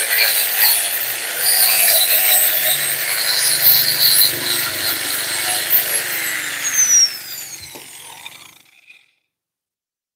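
Small handheld electric power tool running against the metal shock absorber inside its coil spring, stripping the old paint with a rough, scraping grind. About seven seconds in it is switched off, and its whine falls as it spins down and fades out.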